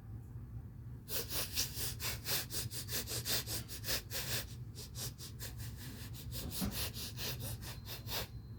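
Lion sniffing: a rapid run of short, sharp sniffs, about four a second, starting about a second in.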